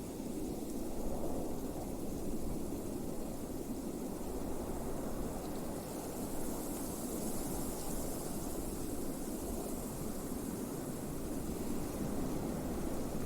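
Blizzard wind blowing steadily with a deep rushing roar, and a high hiss that swells for a few seconds in the middle.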